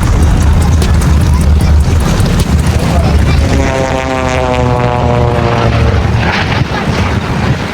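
Propeller airplane flying past, its engine tone sliding down in pitch as it passes a few seconds in, over a steady low rumble.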